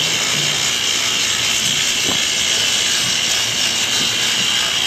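A steady, even hiss with a faint high whine running through it.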